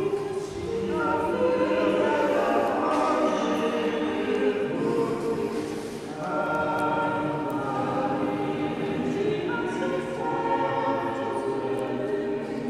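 Choir singing in a cathedral: held chords sung in phrases, with new phrases beginning about a second, six seconds and ten seconds in.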